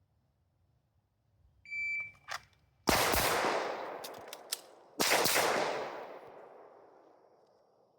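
Shot timer beeps once, then a pistol fires a single shot, followed about two seconds later by two quick shots. Each shot leaves a long fading reverberant tail.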